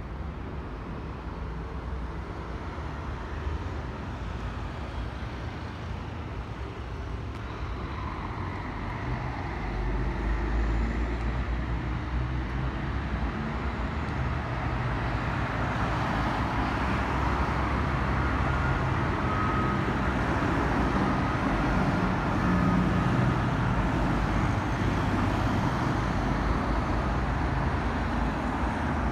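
City road traffic: cars driving past on a multi-lane road, a steady rush of tyres and engines that grows louder about ten seconds in.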